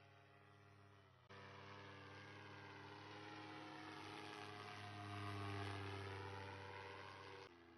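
Paramotor's propeller engine droning faintly as it flies past overhead, growing to its loudest about five seconds in and then easing off. The drone comes in about a second in and cuts off suddenly near the end.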